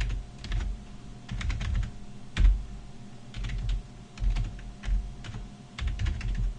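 Typing on a computer keyboard: runs of keystrokes with short pauses between them.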